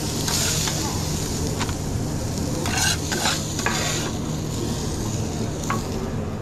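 Food sizzling in a pan as a utensil stirs it, with a few short scrapes and knocks bunched near the middle, over a steady low kitchen hum.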